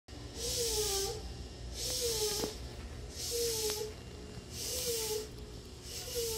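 A short hiss with a faint wavering whistle-like tone in it, repeating evenly about every one and a half seconds, five times, over a steady low hum.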